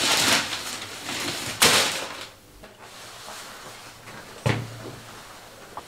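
Handling noises: two short rustling swishes, then a single knock about four and a half seconds in.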